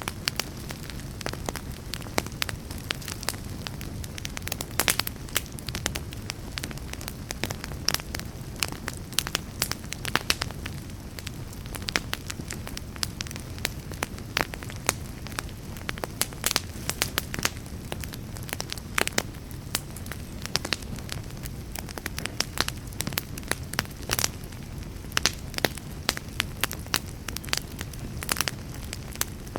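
Wood fire crackling in a fireplace: a steady low hiss and rumble of burning with frequent irregular sharp pops and snaps, several a second.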